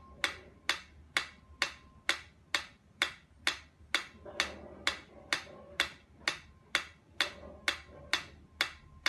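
Mechanical pyramid metronome ticking steadily, about two ticks a second.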